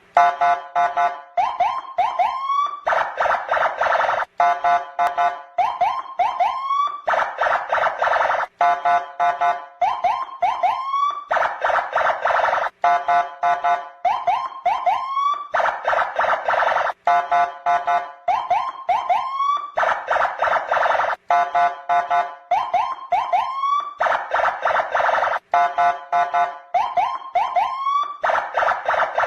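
Police patrol vehicle's electronic siren and horn sounding in a repeating cycle about every four seconds: a run of quick chirps, a few short rising whoops, then a long buzzing horn blast.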